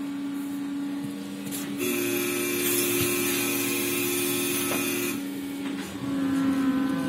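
Ikarus-Ganz 280.94 trolleybus with Ganz electrical drive, standing still, its onboard equipment giving a steady electrical hum. From about two seconds in to about five seconds, a louder hissing whine joins, then cuts off.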